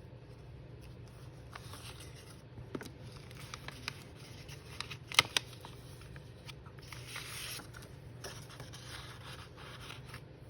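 Paper and craft materials handled on a tabletop: intermittent rustling and scraping with scattered light clicks and taps, the sharpest a quick double click about five seconds in.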